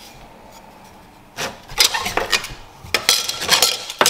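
Metal engine-mount shims and loose parts clinking and scraping as they are handled and sorted by hand; quiet for the first second or so, then a run of irregular clatter.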